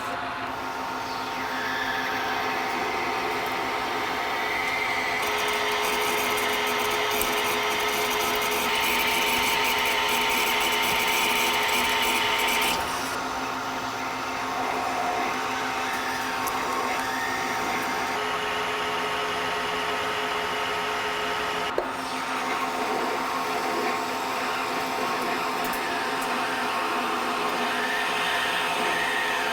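Metal-cutting machine tool running steadily with a gear whine while machining a steel shaft. A harsher, louder stretch of cutting noise lasts several seconds in the middle, and a single sharp click comes later on.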